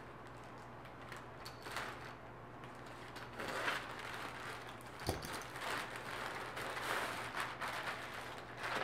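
Scissors snipping through a plastic poly mailer bag, with the plastic crinkling as the bag is worked open and clothing is pulled out. There is a light thump about five seconds in.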